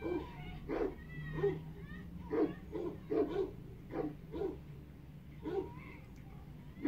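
A dog giving about ten short barks and yelps, a fraction of a second apart, with a thin whine between some of them.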